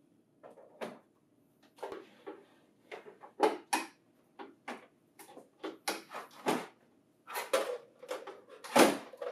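Hard plastic knocks, clicks and short scrapes as a 500-sheet staple finisher unit is slid into the bay of a laser printer and seated, with the loudest knock near the end.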